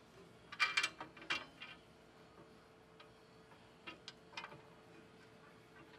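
Light clicks and taps of the cargo rack's slat and brackets being slid and fitted onto the rails, a quick cluster in the first two seconds, then a few scattered single ticks.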